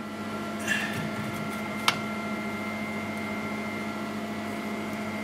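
Steady hum of running machinery, such as fans or pumps, with several fixed tones. A short rustle of parts being handled comes just under a second in, and a single sharp click about two seconds in as the lens tube is pushed into the laser head bracket.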